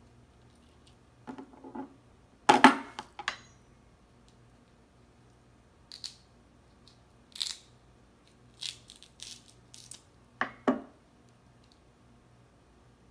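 Cooked crab leg shells cracking and snapping as they are broken apart by hand, with lighter clicks and crackles of shell being picked at. The loudest cracks come about two and a half seconds in, and two sharp snaps near the end.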